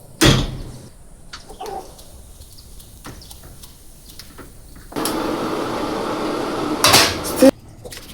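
Kitchen handling sounds of dishes and utensils: a sharp knock just after the start and a few light clicks, then about two and a half seconds of steady noise that ends in two louder knocks and cuts off abruptly.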